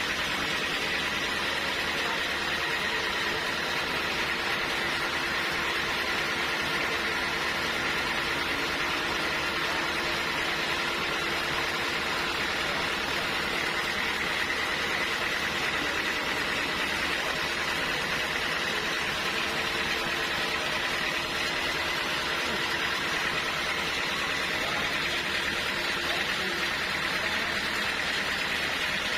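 Sawmill machinery running steadily: a constant mechanical noise with a few steady tones that do not change.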